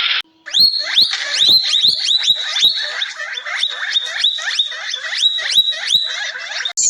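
An animal calling over and over in short, high, downward-swooping calls, about three a second.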